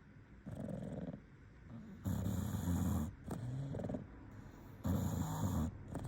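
English bulldog snoring in its sleep. Two loud snores come about three seconds apart, each followed by a softer breath, with a shorter, softer snore near the start.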